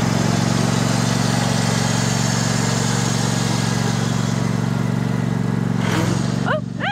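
Ride-on lawn mower engine running at a steady speed, its note changing and dropping briefly near the end.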